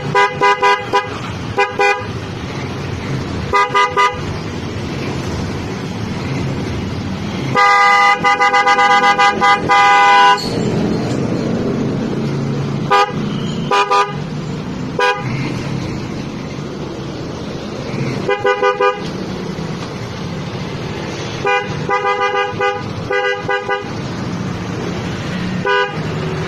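Pair of Denso snail horns, a high and a low tone sounding together. They give a string of short toots and quick double and triple taps, with one long blast of about three seconds roughly eight seconds in, over a steady low hum.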